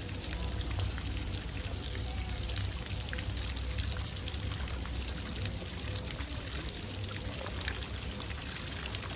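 Steady patter and splash of a sprinkler's water jet falling onto a rhino's back and into its pool, with a low steady rumble underneath.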